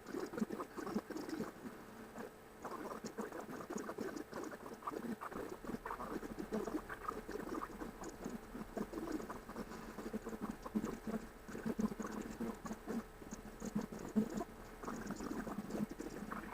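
Rapid, squeaky chittering and patter from a cat and her kittens, in sped-up timelapse audio, so the kittens' mews and movements run together like a rodent's chatter.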